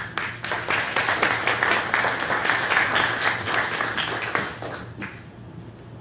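Audience applauding. It starts suddenly and dies away about five seconds in.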